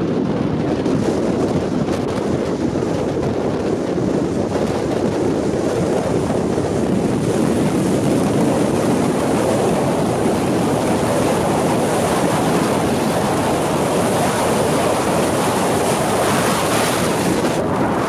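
Strong wind blowing across the microphone: a steady, loud rush.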